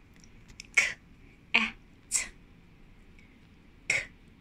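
A woman's voice sounding out the separate sounds of the word "cat" (/k/, /a/, /t/) as short, breathy bursts about half a second apart, for the listener to blend. Near the end she starts the sequence again with another /k/.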